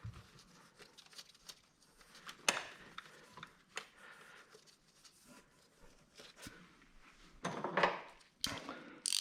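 Hand work on car wiring and parts: scattered light clicks, taps and rubbing, with a louder rustling handling noise near the end.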